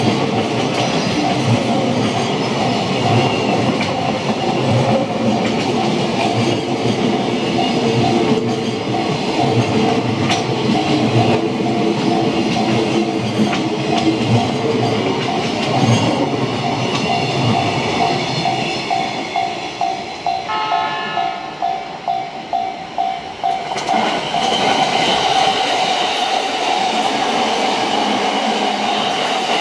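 A train rolling over a level crossing, its wheels clattering rhythmically over the rail joints. A repeating electronic ding keeps sounding throughout, the crossing's warning bell.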